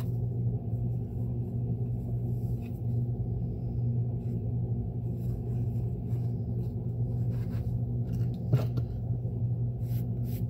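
A steady low hum, with faint handling sounds of a leather boot and sole being pressed by hand and one sharp tap about eight and a half seconds in.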